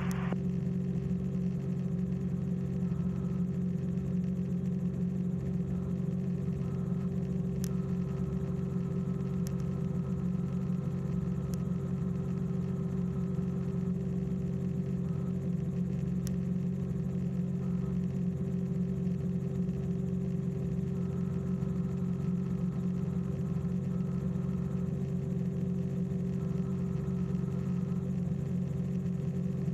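Steady drone of a light aircraft's engine and propeller in cruise, heard inside the cabin, holding an even pitch throughout.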